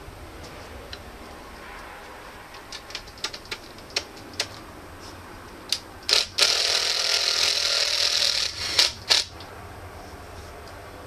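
Steel lever-and-wheel mechanism of a heavy anvil cart being worked: scattered metal clicks, then a loud grating scrape of about two seconds set between sharp clacks.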